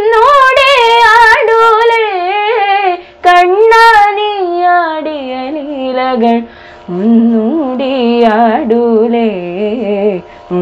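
A girl singing a Krishna devotional song solo, holding long vowels with sliding, wavering ornaments. She breaks briefly for breath twice, and her melody drops to a lower register about halfway through.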